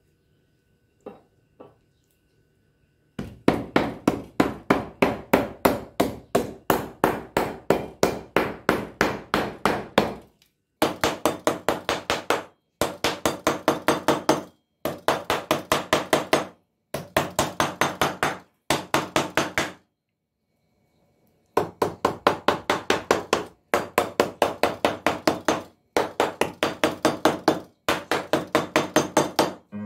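Metal meat tenderizer mallet pounding a thin sheet of raw meat on a plastic cutting board: rapid blows about four a second, in runs of a few seconds with short pauses and one longer pause near the middle.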